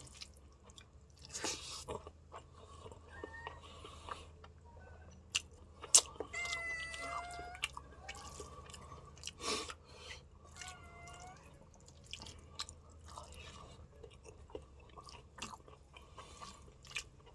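Close-up chewing of instant noodles and rice, with irregular small mouth clicks and crunches. A cat meows twice, about six and ten seconds in.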